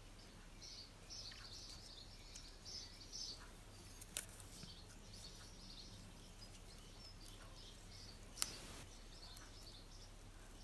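Faint songbirds chirping and twittering, many short calls through the whole stretch. Two short sharp clicks stand out, about four and eight and a half seconds in.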